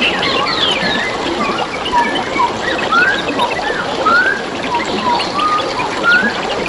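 Forest birds chirping in many short rising and falling notes over a steady trickle of running water.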